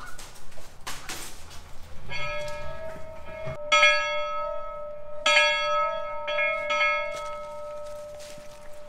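A one-room schoolhouse bell in its rooftop belfry, rung as the call to class. About five strokes come from about two seconds in, the middle ones the loudest, and each rings on and overlaps the next before the last slowly fades away.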